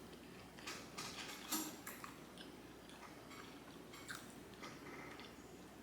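Close-miked chewing of cacio e pepe pasta with chicken: faint, soft wet mouth clicks and smacks, most of them in the first two seconds and a few more about four seconds in.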